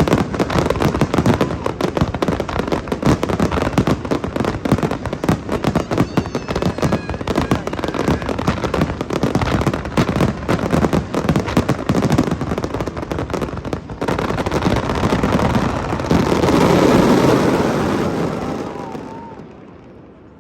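Fireworks going off in a dense, rapid crackle of many bursts, then a louder swell of noise that dies away near the end.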